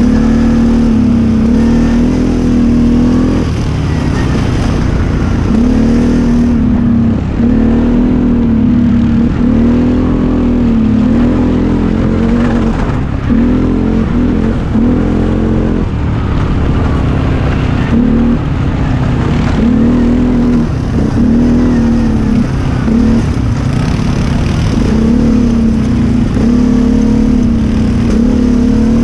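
Quad bike (ATV) engine running under the rider, its pitch rising and falling again and again as the throttle is opened and eased over a rough dirt trail, with a constant low wind rumble on the microphone.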